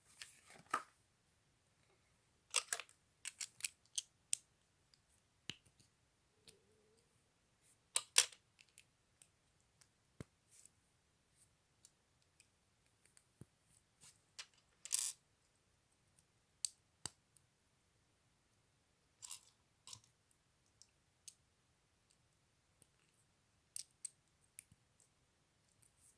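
LEGO plastic bricks being handled and pressed together: irregular sharp clicks and short rattles with quiet gaps between, the loudest about 8 and 15 seconds in.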